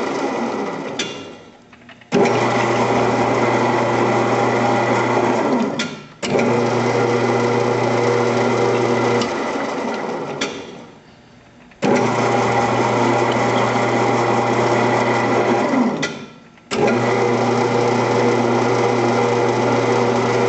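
Grizzly 0602 lathe spindle running at a slow 150 RPM with a steady motor hum and whine while a tap is run into a steel part. It winds down and restarts abruptly about every four to five seconds, four times over.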